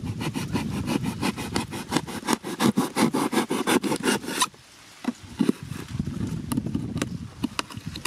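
A knife blade sawing through corrugated cardboard in quick back-and-forth strokes, about six a second. The strokes stop suddenly about halfway through, leaving a few scattered scrapes and clicks as the cut flap is worked free.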